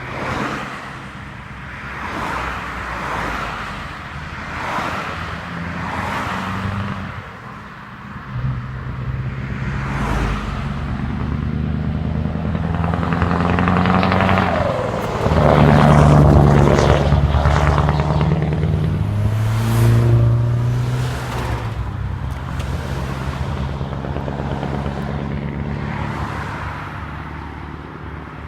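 Scania R500 truck's V8 diesel engine accelerating hard past, its pitch stepping up and down through several gear changes. It grows loudest as the truck passes, about halfway, then fades as it pulls away.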